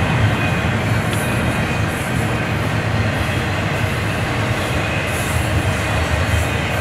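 Double-stack container cars of a freight train rolling past: a steady, low rumble of steel wheels on rail.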